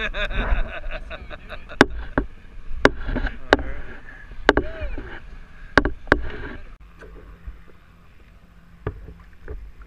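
Water splashing and a fish thrashing as it is netted beside a kayak, with several sharp knocks. About seven seconds in it cuts to a quieter stretch with a few faint clicks.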